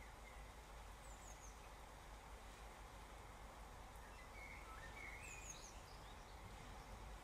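Faint, steady hiss of rain falling on a wet street. A bird chirps briefly a few times about a second in, and again in a short run of chirps about four to five seconds in.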